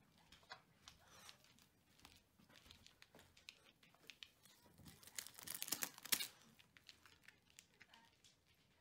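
Thin plastic bag of toy plastic swords crinkling as a puppy noses it, loudest in a short cluster about five to six seconds in, with faint scattered ticks and rustles around it.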